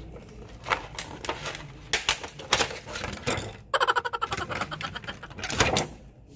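Close-up eating and food-handling noises at a sushi meal: a run of sharp irregular clicks and crackles, with a dense burst of rapid crackling in the middle.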